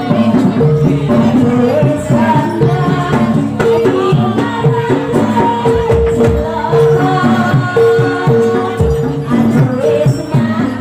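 Jaranan music from a gamelan-style ensemble playing continuously. Held pitched percussion notes repeat in a steady pattern under drum strokes and jingling rattles, with a wavering, gliding melody line on top.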